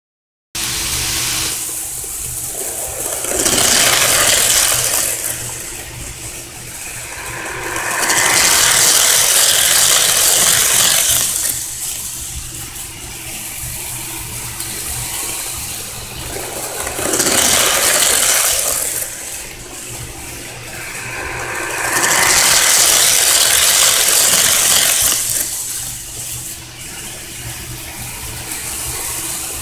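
HO scale Athearn model diesel locomotives running at top speed around a layout: an electric motor whirring and metal wheels rattling on the rails. The sound swells loud several times as the train passes close and fades as it runs away, over a steady low hum.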